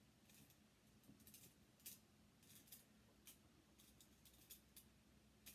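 Near silence broken by faint, irregular little clicks and rustles: fabric and a safety pin being handled as elastic is pinned on.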